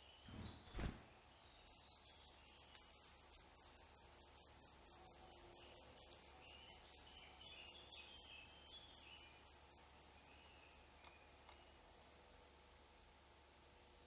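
Black redstart nestlings begging for food from a parent at the nest: a rapid series of very high, thin calls, about four or five a second, starting about a second and a half in and thinning out near the end. A short dull thump comes just before the calls begin.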